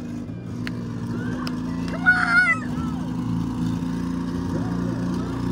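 Demolition derby car engines running steadily under crowd chatter, with a brief loud shout about two seconds in.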